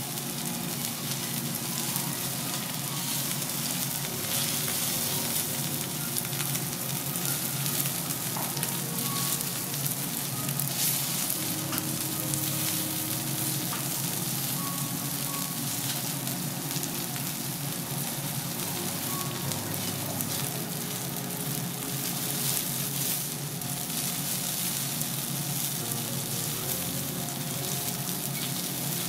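Kobe beef sirloin steak sizzling on a hot teppanyaki griddle: a steady hiss and crackle of fat frying against the steel plate.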